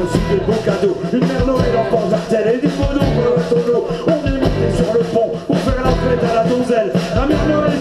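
Live rock band playing amplified on stage, electric guitar over a steady beat.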